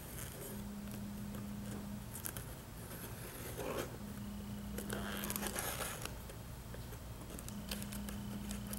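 Utility knife slicing along the packing tape on a cardboard box's seam, with scratchy tearing and scraping as the blade is drawn through, in short stretches.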